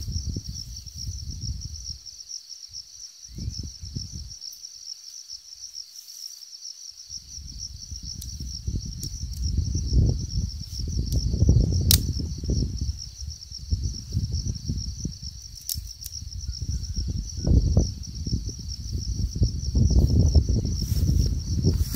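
Insects chirring steadily and high-pitched throughout, under a louder, gusty low rumble of wind buffeting the microphone that drops away for a few seconds early on and then returns. A single sharp crack about halfway through.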